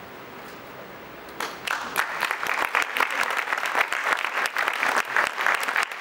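Audience applauding. It starts about a second and a half in after a short lull and quickly fills out into steady clapping.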